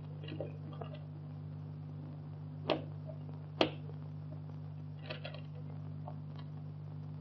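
Door handle and latch clicking as a hand works a doorknob: two sharp clicks about a second apart near the middle, with lighter rattling clicks before and after. Under it runs the steady low hum of an early sound-film soundtrack.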